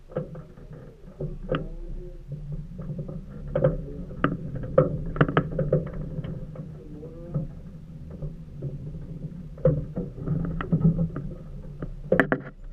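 Small waves slapping and knocking irregularly against the side of an aluminium fishing boat, over a steady low rush of water.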